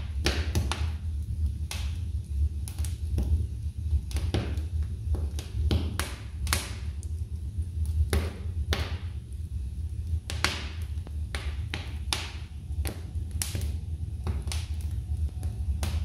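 Wood logs burning in a fireplace, crackling with irregular sharp pops over a steady low rumble.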